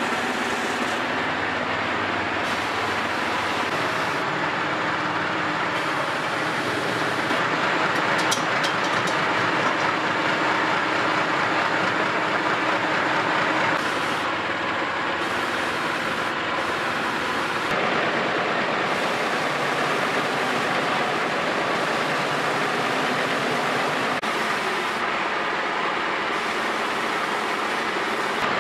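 Large horizontal disc sander running, with a wooden drum ring pressed onto the spinning abrasive disc to flatten its edge. The steady motor and sanding noise swells for a few seconds in the middle as the ring is worked.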